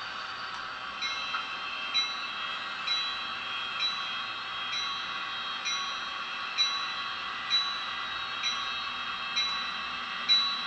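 Sound decoder (ESU LokSound 3.5) in an HO-scale Athearn GP38 model diesel locomotive playing a locomotive bell, struck about once a second from about a second in, over a steady hum from the model's small speaker.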